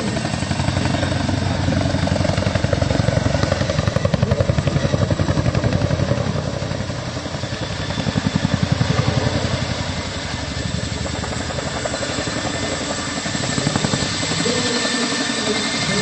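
Helicopter flying overhead, its rotor beating in fast, even pulses, growing louder twice as it passes.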